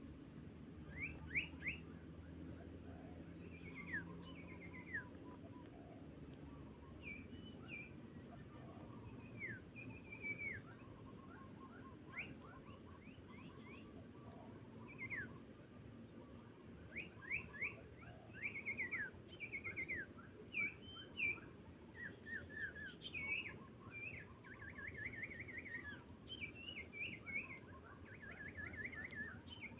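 Small songbirds, sirpu birds, calling: a string of short chirps, falling notes and quick trills, coming more often in the second half.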